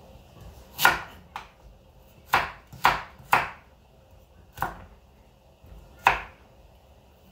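Kitchen knife chopping vegetable pieces on a wooden cutting board: about seven sharp knocks of the blade on the wood, irregularly spaced, some lighter than others.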